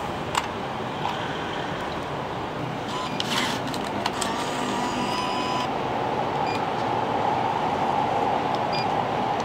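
Vending machine's bill acceptor taking in a 1,000-yen note: a short paper rustle about three seconds in, then a motor whir lasting about a second and a half. Later, two short electronic beeps as the keypad buttons are pressed, over steady background noise.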